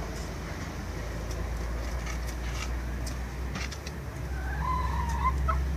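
A steady low motor hum, with a few scattered clicks and a brief wavering whistle-like tone near the end.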